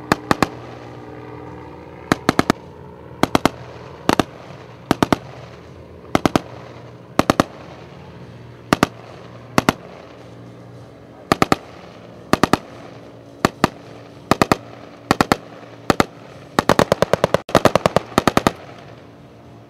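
Short bursts of automatic rifle fire, two to four shots each, about once a second, ending in a longer rapid string of shots. Under the shots a Yamaha outboard motor runs steadily as the inflatable boat pulls away.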